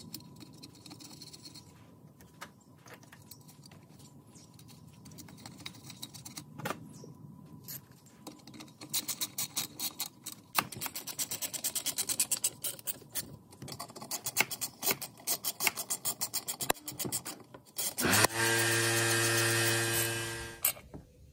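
Ratchet with a 5/16 socket clicking in quick runs as the muffler bolts on a Stihl MS 390 chainsaw are tightened. Near the end, a louder steady whir for about two seconds.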